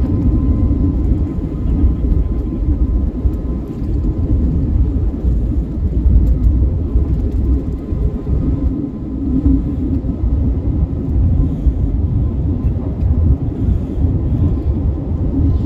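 Cabin noise of an Airbus A320-family jet at takeoff power, heard from a window seat over the wing: a steady low engine rumble with two faint steady tones, through the takeoff roll and the climb-out.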